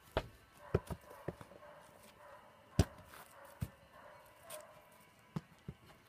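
About eight scattered sharp knocks and thumps at irregular intervals, the loudest a little under three seconds in.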